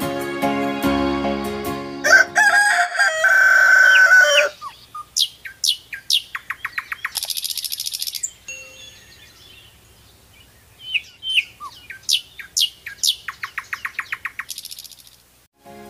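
Background music that stops about two seconds in, then a rooster crowing once, followed by small birds chirping and trilling.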